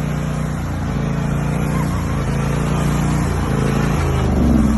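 Riding lawn mower's engine running steadily, its note shifting about four seconds in.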